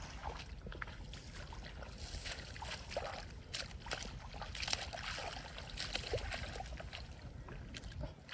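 Shallow rice-field water splashing and sloshing in irregular bursts, as someone wades and grabs through it by hand, over a steady low rumble.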